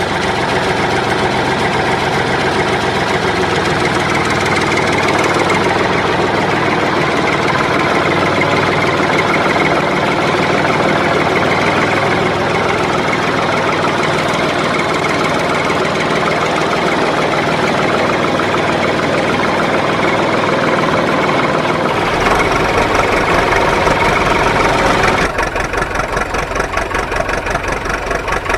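Engine running sound, steady and loud. About 22 seconds in a deep hum joins it, and about 25 seconds in it turns into a fast, even pulsing rattle.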